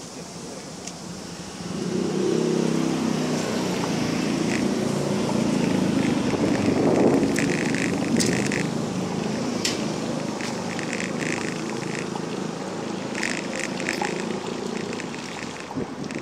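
A mamachari city bicycle being ridden on a paved sidewalk: a steady rolling rumble that starts about two seconds in, with short bursts of rapid rattling from the bike. Street traffic swells loudest about seven seconds in.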